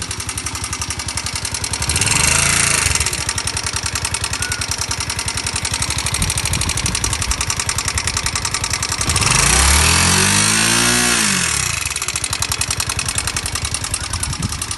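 Bajaj Pulsar NS160 single-cylinder engine idling with a fast, even ticking clatter, revved briefly twice: once about two seconds in and for longer near the middle. The excess noise comes from a damaged camshaft and rocker arms.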